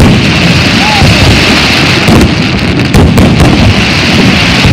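Fireworks display: aerial shells bursting loudly one after another with crackle in between, with no pause.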